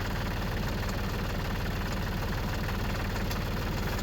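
A New Holland compact tractor's diesel engine idling steadily, with an even low pulse.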